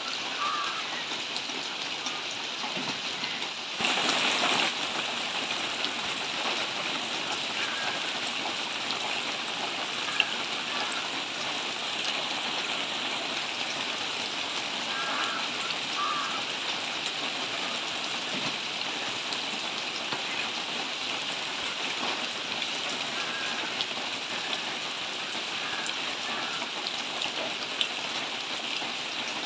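Steady rain falling on leaves, an even hiss with a few sharp drip ticks. It briefly grows louder about four seconds in.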